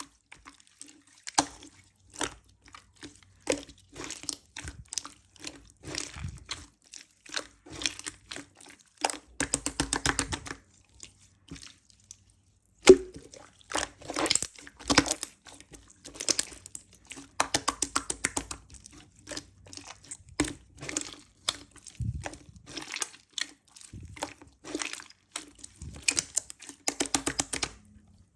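A soft, sticky mass with glitter being squished and pulled by hand, giving bursts of rapid sticky clicks and crackles with short pauses between them.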